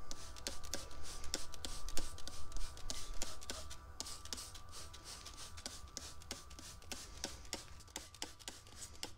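Hand-held trigger spray bottle squirting all-purpose cleaner over an engine bay: a quick run of short sprays and trigger clicks, thick over the first three seconds and sparser after that.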